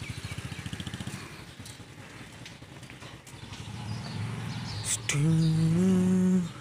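A motorcycle engine running with a fast low pulsing beat. It fades about a second in and builds again around four seconds in. Near the end a loud held tone, stepping slightly up in pitch, lasts about a second and a half and stops suddenly.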